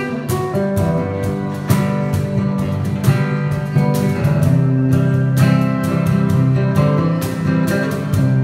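Solo acoustic guitar playing, picked and strummed chords with many notes struck in quick succession.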